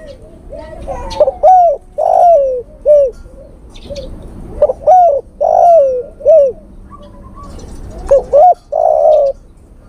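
Male spotted dove cooing, a male's call to attract a female: about four phrases of low rolling coos. Small birds chirp faintly in the background.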